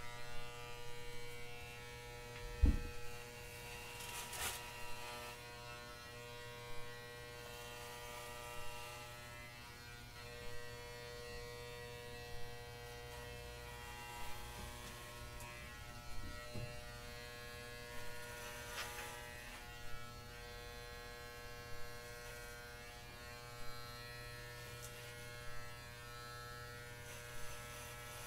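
Electric hair clipper with a guard comb buzzing steadily as it shaves a woman's head, with brief louder swells about every two seconds as it passes through the hair. A single low bump comes about three seconds in.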